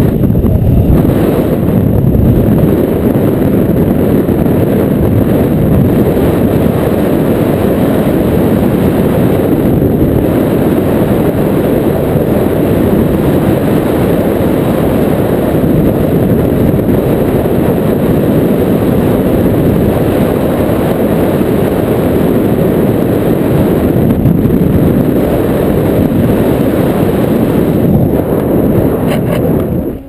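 Loud, steady wind rumble as the airflow of a paraglider flight buffets a small camera's microphone.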